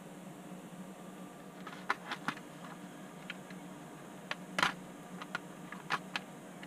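A handful of light plastic clicks and taps from handling a Hornby OO-gauge Class 92 model locomotive, the loudest a little past halfway, over a faint steady hum.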